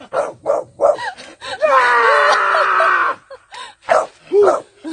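A man's wordless yelling: a few short shouts, then one long drawn-out yell that slowly falls in pitch, then quick short cries about twice a second.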